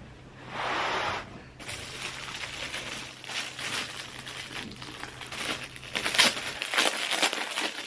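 Plastic packaging crinkling and rustling as it is handled, in a run of irregular crackles from about two seconds in, loudest near the end. A short, soft rush of noise comes just before it.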